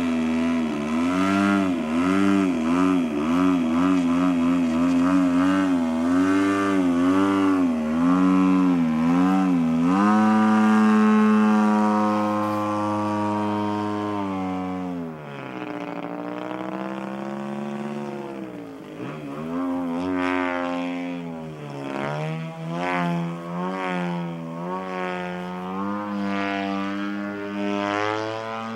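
DLA 64 twin-cylinder two-stroke petrol engine of a large radio-control Extra 260 aerobatic plane in flight. The engine note wavers rapidly up and down through the first ten seconds, then holds steady at high revs for a few seconds. It then drops and grows fainter as the plane goes far off, and rises and wavers again near the end.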